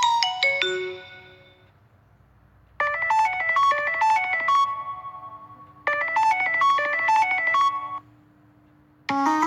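Samsung Galaxy Note10+ ringtone melody played as MIDI notes in Synthesia. It is a short phrase of quick, bright notes, played twice with a held low note beneath, after the last notes of the previous ringtone die away. Just before the end a new, busier ringtone tune begins.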